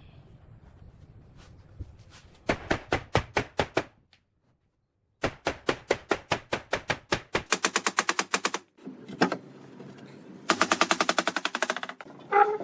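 Bursts of rapid, sharp, evenly spaced strikes from a power tool working wood. The strikes come at about eight a second at first and speed up to about twenty a second in the last burst, with a short dead-silent gap between the first two bursts.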